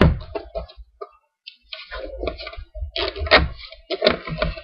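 Plastic wrapping on a Pokémon card tin crinkling and crackling in irregular bursts as fingers pick and scratch at it to get it open, with a sharp knock right at the start.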